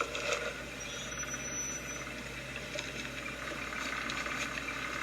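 Steady low noise of a vehicle running, heard from inside the cabin, with faint indistinct sounds over it.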